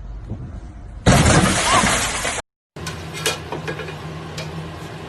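A loud, noisy crash about a second in that lasts over a second and then cuts off abruptly. After a brief gap comes a quieter stretch with a steady low hum and scattered clicks.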